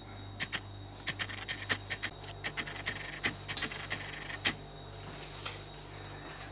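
Irregular light clicks and scratches of a cat's claws pawing at the plastic of a fridge's water dispenser, over the fridge's steady low hum.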